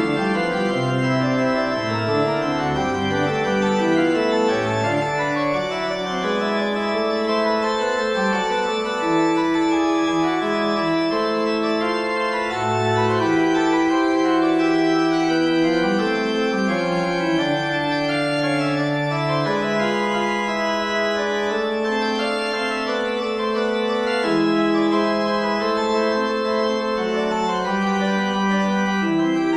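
Background organ music: several lines of long held notes moving against one another at a steady loudness.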